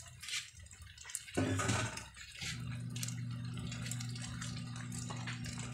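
A ladle stirring mung bean soup in a wok over a wood fire, the liquid sloshing, with scattered light crackles. About two seconds in, a steady low hum starts and holds.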